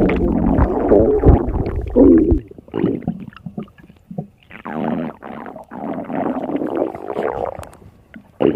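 Stomach growling and gurgling. A loud low rumble with churning gurgles cuts off abruptly about two and a half seconds in, followed by softer bubbling gurgles in a few separate bursts.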